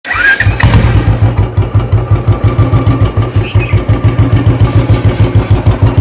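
Royal Enfield Bullet's single-cylinder engine starting, then idling with an even thump, about six or seven beats a second.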